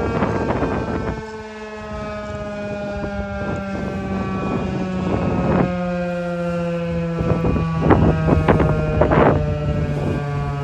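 Federal Signal 2001-130 outdoor warning siren at the end of its steady alert signal, its tone falling slowly as it winds down. Several short gusts of wind noise hit the microphone.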